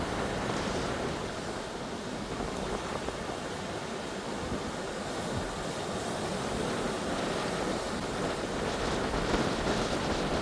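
Pacific Ocean surf: a steady rushing wash of waves, with wind on the microphone, growing a little louder near the end.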